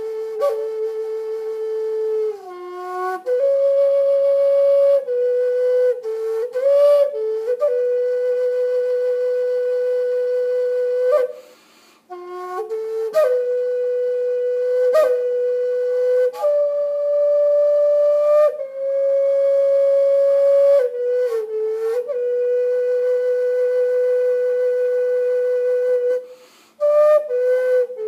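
Solo flute playing a slow melody of long held notes with short slides between them. It breaks off briefly twice, about halfway through and near the end.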